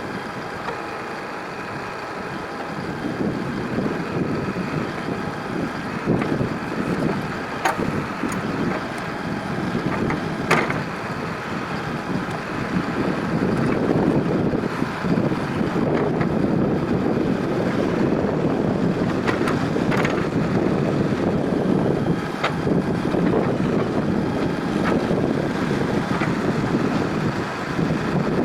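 Backhoe loader's engine running under work. It grows louder about halfway through, with a few sharp knocks.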